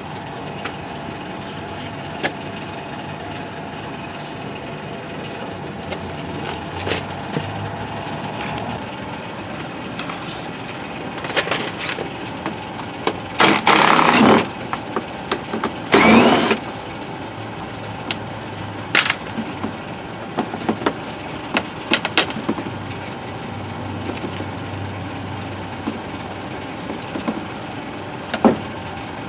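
Scattered clicks and knocks of hands and tools working on a vehicle, over a steady background hum. Two louder rustling, clattering bursts come a little past the middle.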